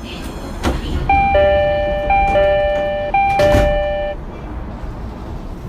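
Low-pitched two-tone door chime of a JR East E233-3000 series commuter train, sounding three ding-dongs about a second apart, a higher note then a lower one each time. Two sharp knocks come just before the chime and during the last ding-dong, over a steady rumble.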